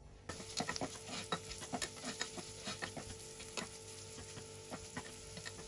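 Diced onion sizzling and crackling in hot vegetable oil in a nonstick saucepan, a dense patter of small pops that begins about a third of a second in.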